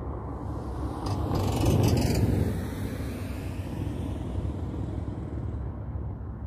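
A car passing on the road, its tyre and engine noise swelling to a peak about two seconds in and then fading, over a steady low rumble of wind and distant traffic.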